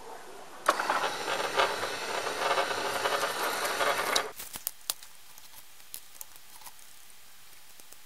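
A sliding gate's DC drive motor, fed rectified 24 V through a test bridge rectifier and capacitor, starts abruptly about a second in, runs steadily for about three and a half seconds, then cuts off. After it, a few light clicks of small parts being handled.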